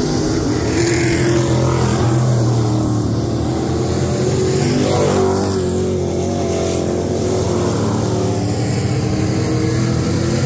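Several dirt-track race cars running at speed around the oval, a loud steady mix of engines whose pitch rises and falls as the cars go through the turns.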